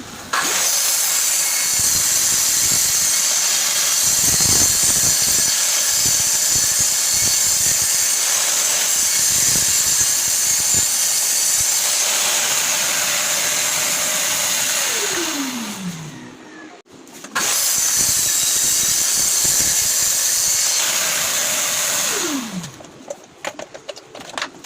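Electric woodworking power tool with a high-pitched motor whine, running for about fifteen seconds, then switched off and winding down with a falling pitch. It starts again a second later, runs for about five seconds and winds down the same way.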